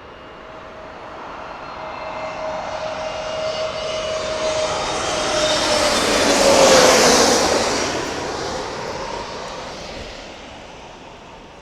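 An SAS Airbus A320-200 jet airliner on final approach passing close overhead: the engine noise builds, peaks about seven seconds in and fades. Its whining engine tones drop in pitch as it goes past.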